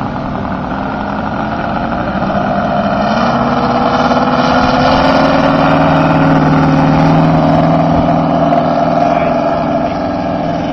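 Robart R780 seven-cylinder radial engine of a scale-model Fairchild PT-23 opening up for the takeoff run, its pitch rising about two to three seconds in, then running steadily at full throttle as the model lifts off. It grows louder to a peak mid-way and is a little quieter near the end as the plane climbs away.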